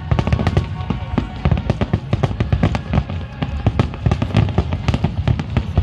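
A rapid barrage of aerial fireworks bursts, several sharp bangs a second, with a low rumble under them.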